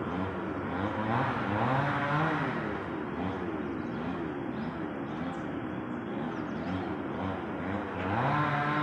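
A motor engine with its pitch rising and falling over and over, about once a second, then running at a steady pitch near the end.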